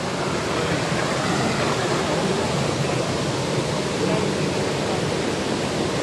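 Small mountain-stream waterfall pouring over boulders into a rock pool: a steady, even rush of water.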